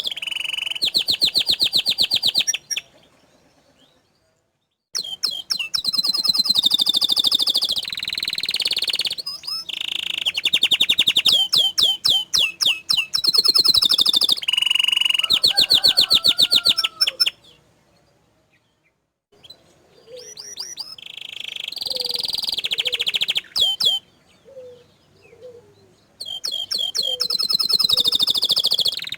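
Domestic canary singing loud phrases of very rapid rolling trills and repeated chirps, with short pauses between phrases, the long rolling song known as 'ngerol'.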